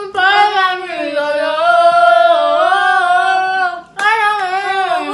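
Female voice singing, holding a long phrase that slides up and down in pitch. It breaks off briefly near the end and starts a new phrase.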